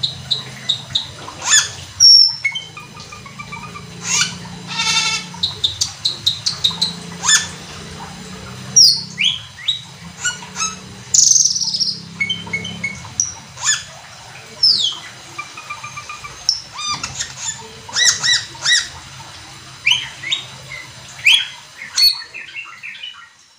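A cucak keling (Asian glossy starling) singing hard in full song: a fast, unbroken run of sharp chips, whistles and quick down-slurred notes, with a rasping buzzy phrase mixed in.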